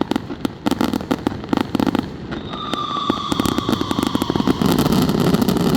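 Fireworks finale barrage: rapid, densely packed bangs and crackling. From about two seconds in, a whistling tone slides slightly down in pitch over a couple of seconds, and the barrage grows denser and louder toward the end.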